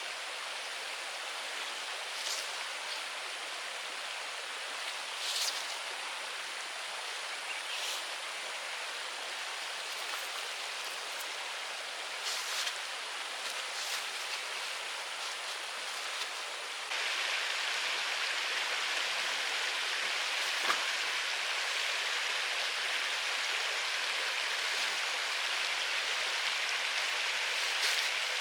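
Steady rain, an even hiss with a few scattered sharp ticks. About two-thirds of the way through it suddenly becomes louder and brighter and stays so.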